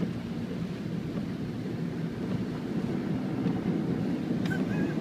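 Car driving upstream through floodwater on a road: a steady low rumble of engine and water churning around the tyres.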